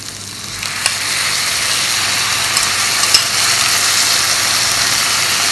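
Boiled corn kernels spooned into hot oil with frying onions, sizzling hard; the sizzle swells over the first second as the wet corn goes in, then holds steady. A few light clinks of the spoon come through it.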